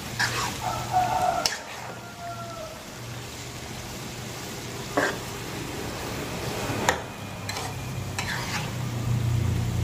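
A metal spatula stirs and scrapes a stir-fry of green beans and chicken skin in a non-stick wok, with the food sizzling. Several sharp scrapes of the spatula against the pan are spread through it.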